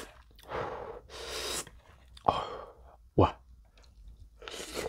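A man breathing in sharp hissing breaths while eating extremely spicy stir-fried noodles, with two sharp clicks in the middle and a slurp of noodles near the end.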